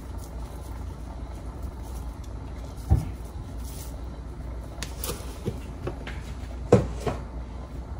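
Kitchen handling sounds: two dull knocks, about three seconds in and near seven seconds, the second the louder, with a few light clicks between them, over a steady low hum.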